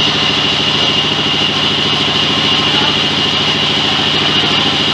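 Sawmill engine running steadily, an even rhythmic thrum with a steady high whine over it.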